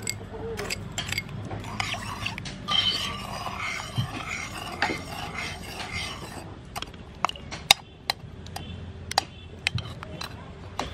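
A metal spoon stirring watery tamarind sauce in a black pot: liquid swishing, with the spoon clinking and scraping against the pot, and several sharp clinks in the second half.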